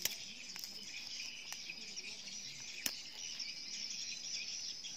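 Steady high-pitched chorus of insects, with a few sharp clicks as the prawn is handled, the loudest near the middle.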